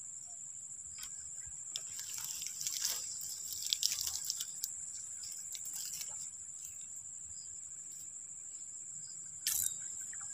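Steady high-pitched drone of insects, with light crackling and clicking from hands handling fishing tackle among dry reeds, busiest about two to five seconds in.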